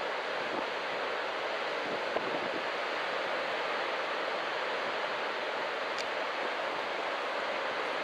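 Steady wash of ocean surf breaking along a beach, an even rushing noise with no single crash standing out.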